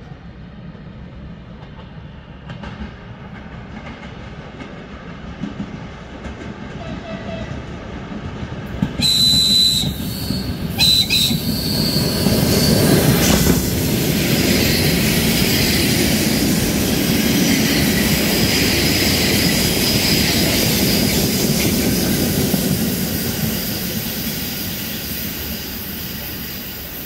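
ЭД2Т electric multiple unit approaching and passing close by: the rumble of its wheels on the rails grows, with two short high-pitched whistle blasts as it nears. Then comes loud wheel noise with clickety-clack as the cars go past, fading near the end.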